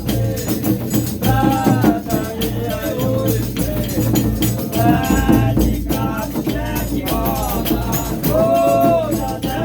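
Brazilian Reisado folk music: voices singing short phrases over shaken rattles and steady percussion.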